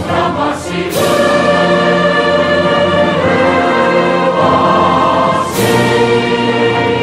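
Background choral music: voices singing long held chords that change every second or so.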